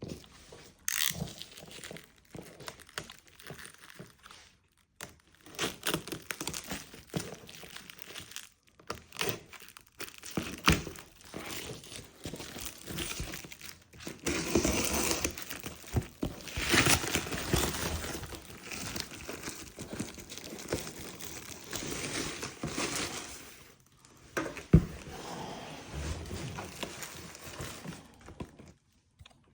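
A helmet's packaging being handled and opened: irregular rustling, scraping and knocks of box and wrapping, with one sharp knock about 25 seconds in.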